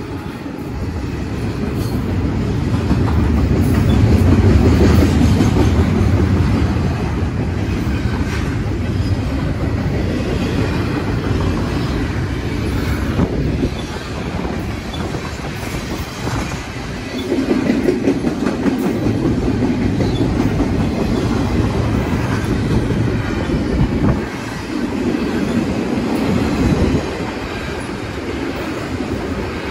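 BNSF double-stack intermodal freight train passing at speed: a steady rumble and clatter of steel wheels on rail, swelling and easing in waves as the container well cars go by.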